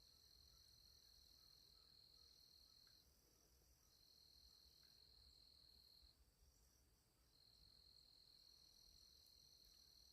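Faint high-pitched insect trilling, one steady tone held in three long spells of two to three seconds, each broken off by a pause of about a second.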